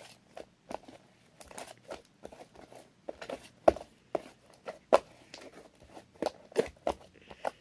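Sticky homemade slime being kneaded and stretched by hand: irregular wet clicks, smacks and squelches, the loudest about halfway through. The slime is still sticky and slow to come together, which the maker puts down to added water.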